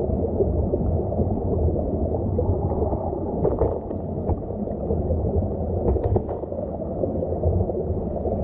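Muffled underwater rush and rumble of a stream's current heard from the streambed, with a few faint ticks near the middle.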